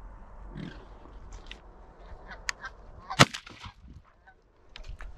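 Canada geese honking, then a single 12-gauge shotgun shot about three seconds in, with more honking right after it.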